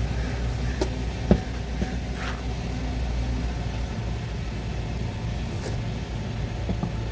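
Steady low hum of an idling vehicle engine, with a few short clicks and knocks from the car being jacked up; the loudest knock comes about a second and a half in.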